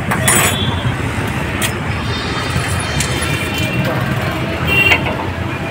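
Steady rumble of road traffic with faint voices in the background, and a few sharp clinks of a steel ladle against a steel pot and plate as curry is served.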